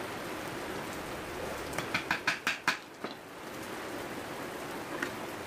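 Hammer tapping a nail into a thin wooden board: a quick run of about six sharp taps about two seconds in, then one more just after and a single tap near the end. A steady hiss runs underneath.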